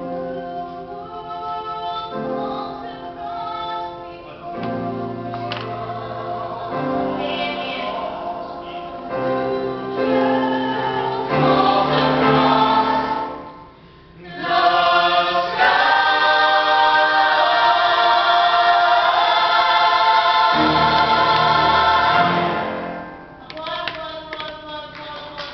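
Choir singing in held chords. The music drops away briefly about halfway through, then swells back to its loudest for several seconds before easing off near the end.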